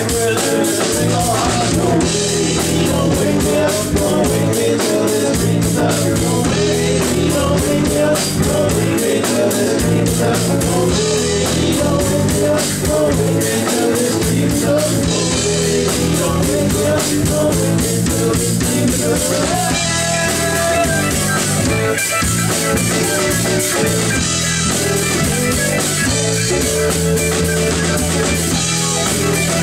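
Live rock band playing loud and steady: electric guitars over a drum kit keeping a regular beat.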